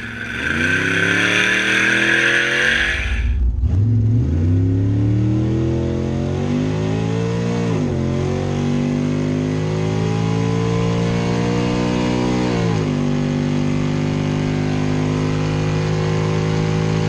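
Small-block Chevrolet V8, a 400 destroked to 377 in a 1964 Chevrolet Impala, accelerating hard down a drag strip, with a loud hiss over the first three seconds. Heard from inside the cabin, the revs climb and drop sharply at gear changes about eight and thirteen seconds in, then hold steady.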